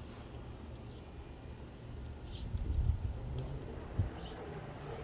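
High, thin chirps in short groups of two or three, repeating about once a second, over a low steady rumble.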